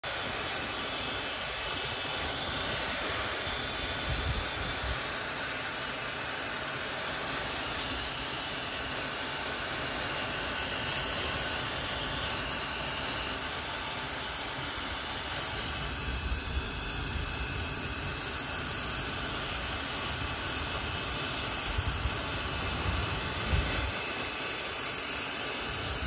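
Hair dryer blowing steadily, a constant even hiss, with a few brief low rumbles now and then.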